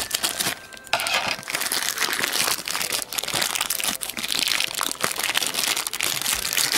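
Thin clear plastic bag crinkling and rustling as it is snipped open with scissors and handled to pull a small plastic toy figure out, with many small crackles throughout.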